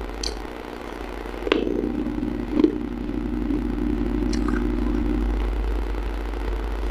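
Close-miked bites into a hard, brittle piece of baked clay: a few sharp crunching cracks, the loudest about two and a half seconds in, over a steady low hum in the background.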